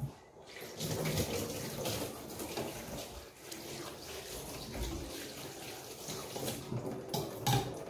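Tap water running into a stainless-steel kitchen sink as vegetables are rinsed under it, with a couple of knocks near the end.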